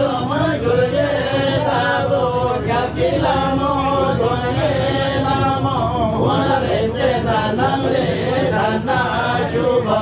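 Several men's voices chanting a ritual chant together, continuous and steady.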